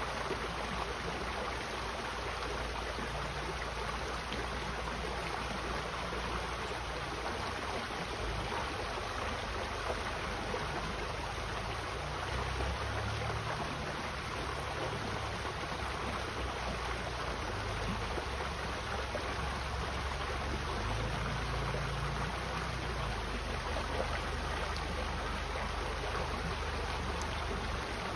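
Shallow creek water running and trickling over rocks through a small riffle: a steady, unbroken rush. A low rumble swells underneath twice, a little before halfway and again later.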